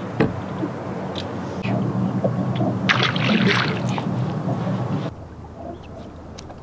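Electric trolling motor on a bass boat humming steadily, with a sharp click just after the start and a rush of noise lasting about a second around three seconds in. The hum drops away abruptly about five seconds in, leaving a quieter background.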